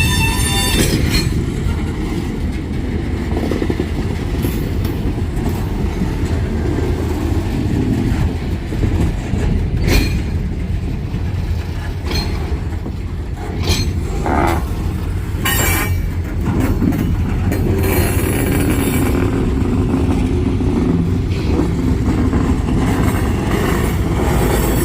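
CSX freight train rolling by slowly with a steady low rumble of locomotive and railcars. Sharp clanks of wheels and couplers come every second or two near the middle. A high ringing tone stops about a second in.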